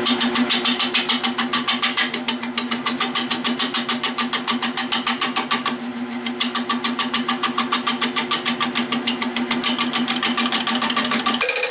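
Nova 16/24 wood lathe spinning a knotty oak bowl blank with a steady hum, the gouge touching the uneven surface once each turn in a rapid, even ticking of about eight strikes a second. The hum cuts off abruptly near the end.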